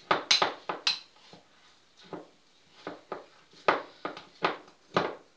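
Metal spoon knocking and scraping against a glass bowl while stirring thick cooked semolina porridge, in a run of short, uneven strokes about one every half second to second.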